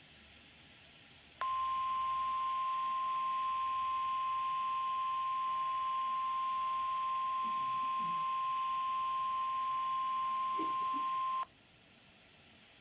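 NOAA Weather Radio warning alarm tone, a single steady high tone that starts about a second and a half in, holds unchanged for about ten seconds, and cuts off sharply. This is the weekly test of the alarm that switches on weather alert receivers.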